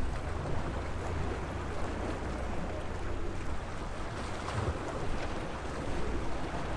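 Sea waves washing steadily against the shore, with wind rumbling on the microphone.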